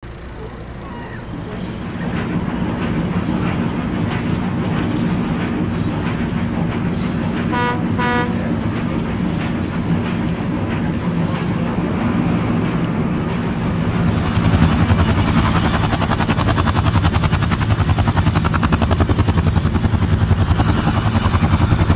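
Tugboat diesel engine running steadily, with two short horn toots about eight seconds in. From about fourteen seconds a helicopter's rotor chops rapidly over a high steady turbine whine.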